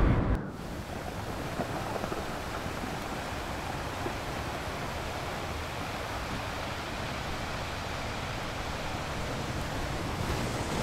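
A loud rushing sound cuts off abruptly a fraction of a second in, leaving a steady, even rushing noise like wind or distant surf.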